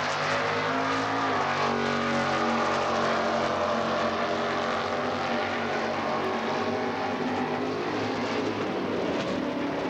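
Stock-class drag car's engine at full throttle, accelerating hard down the strip on a pass and easing slightly in level over the last few seconds as it pulls away.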